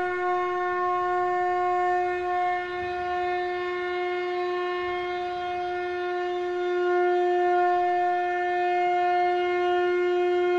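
A conch shell (shankha) blown in one long, unbroken note with a bright, buzzy ring of overtones, holding the same pitch throughout.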